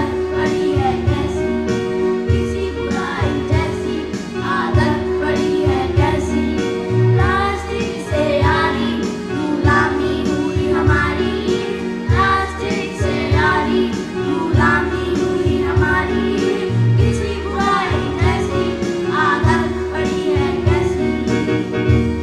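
A group of children singing a Hindi song in unison into stage microphones, over a steady instrumental backing.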